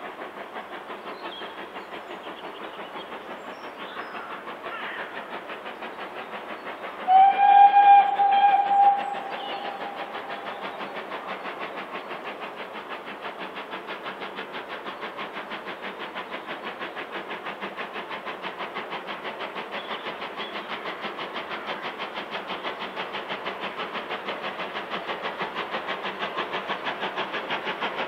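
BR Standard Class 2MT two-cylinder 2-6-0 steam locomotive No. 78022 working a train, its chimney exhaust beating rapidly and evenly and growing louder as it approaches. About seven seconds in it sounds its whistle once, a steady note lasting about two seconds, which is the loudest thing heard.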